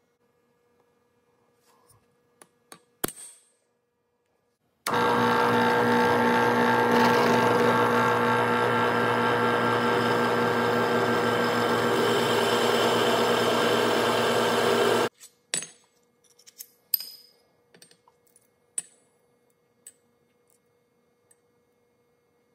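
Drill press running a twist bit into a steel part: a loud, steady motor-and-cutting sound that starts abruptly about five seconds in and stops abruptly about ten seconds later. Before and after it come light metallic clinks and rings of steel pieces being handled.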